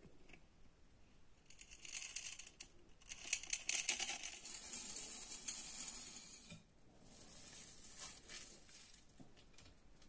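Chocolate chips rattling and clicking against a small glass bowl as they are tipped into cake batter. This is followed by the softer scrape and squelch of a wire whisk folding them into the thick batter.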